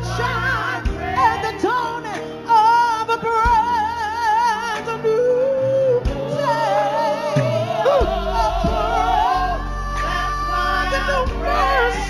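A woman singing gospel with a wide vibrato and sliding melismatic runs, over an instrumental backing that holds long sustained bass notes.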